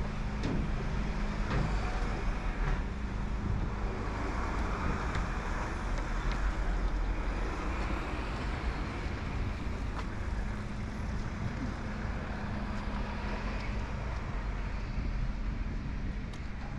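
Street traffic: a steady low engine hum under the noise of passing cars, with one vehicle swelling and fading about midway.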